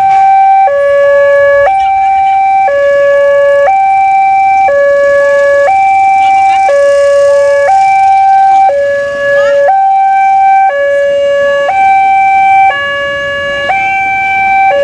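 Loud two-tone horn signal in a hi-lo siren pattern: a higher and a lower note alternating, each held about a second, repeating steadily about every two seconds.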